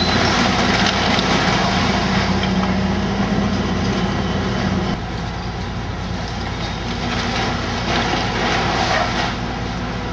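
Heavy diesel demolition machinery running steadily, with metallic rattling and clanking. The engine's hum drops away and the sound gets a little quieter about halfway through.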